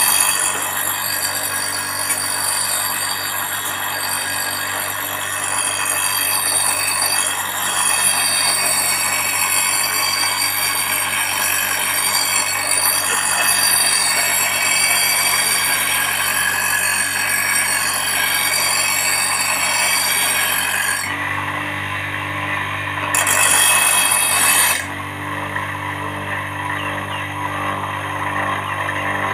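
Electric grinder grinding an iron cleaver blade, a steady grinding rasp over the motor's hum. About 21 seconds in the blade comes off the wheel, leaving only the motor running. It grinds again briefly, then comes off once more for the last few seconds.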